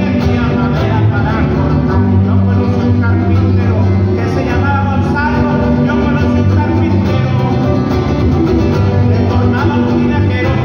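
Live band music in a Mexican son style: a small guitar strummed over an electric bass line.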